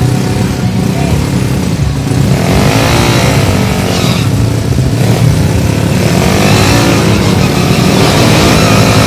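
Drag-racing motorcycle engine revving hard at the start line, its pitch swinging up and down in repeated blips of the throttle, getting a little louder toward the end.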